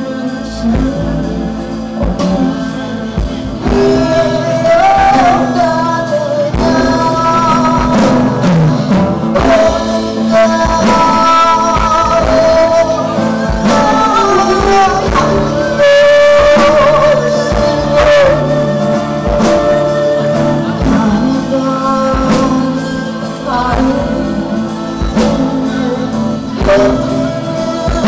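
Live band: a woman singing lead over acoustic guitar and drums, with a Korean zither, flute and keyboard in the ensemble, amplified through stage speakers.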